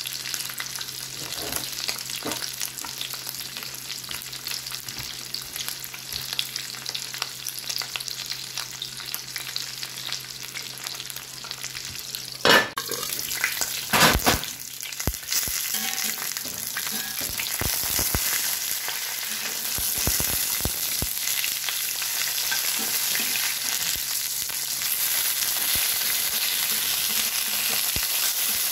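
Alewives frying in oil in a cast-iron skillet: a steady sizzle and crackle that grows louder in the second half. A few loud knocks sound about halfway through.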